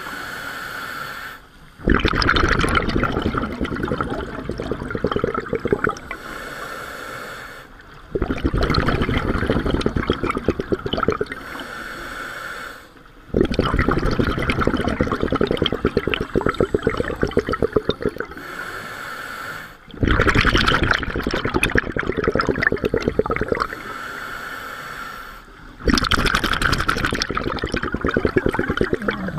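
Scuba diver breathing through a regulator underwater: a loud rush of exhaled bubbles five times, about every six seconds, each followed by the quieter hiss of an inhalation.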